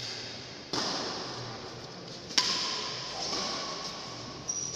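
Badminton rackets hitting a shuttlecock during a rally: several sharp cracks about one to two seconds apart, the loudest near the end, each ringing on in the hall's echo.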